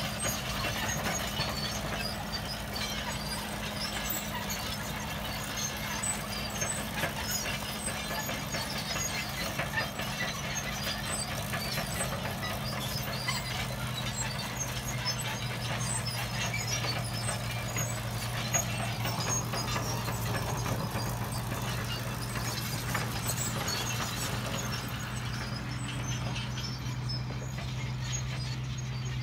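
Caterpillar tracked hydraulic excavator's diesel engine running with a steady low drone, a lower hum growing stronger about halfway through, with scattered light clicks and squeaks over it.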